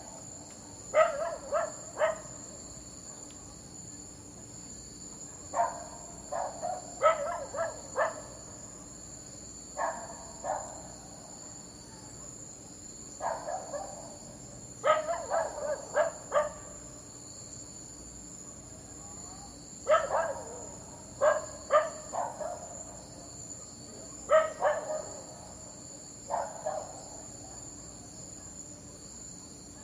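Dog barking in short bursts of a few barks each, with pauses of a few seconds between bursts. A steady high-pitched drone runs underneath.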